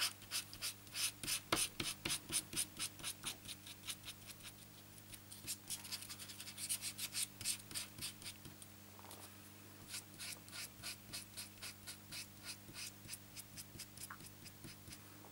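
Tip of a Stampin' Up! Two Way Glue Pen brushing glue over a small piece of card stock: quick scratchy strokes, about three a second, in short runs with brief pauses.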